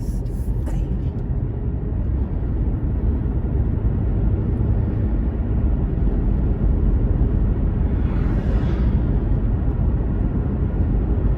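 Steady low rumble of a car driving, heard from inside the cabin. A brief hiss swells and fades about eight seconds in.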